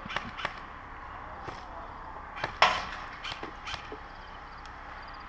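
Scattered sharp pops of airsoft guns firing across the field, a dozen or so at irregular intervals, the loudest about two and a half seconds in.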